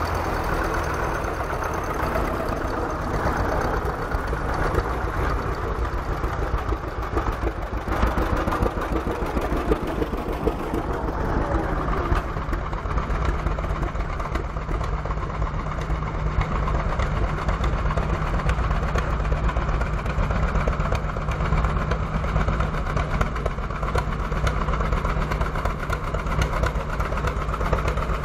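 Vintage tractor engines running as a line of old tractors drives slowly past, the nearest an early John Deere two-cylinder tractor. The engine sound is steady and rhythmic throughout.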